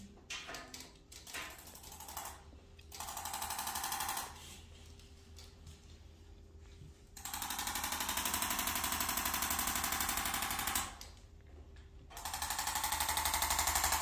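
ArthroStim handheld instrument adjuster firing a rapid machine-gun-like train of taps into the patient's upper back, in three runs: about a second long, then about four seconds, then about two seconds near the end.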